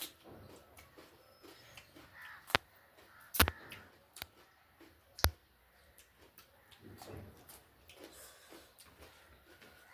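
Eating at a meal: about four sharp clicks and clinks, such as a utensil or bite on a plate, with quieter small mouth and dish noises between them.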